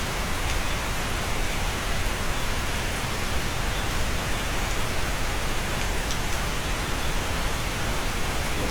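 Steady rain falling, an even hiss with a few faint drop ticks now and then.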